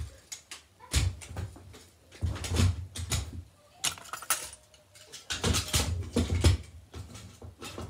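Toys being handled and shifted close to the microphone: four clusters of bumping, knocking and rustling, with quieter gaps between them.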